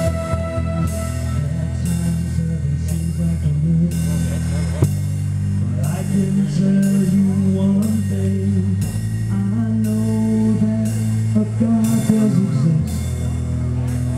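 Live rock music with a drum kit keeping a steady beat under sustained low chords that change about every four seconds.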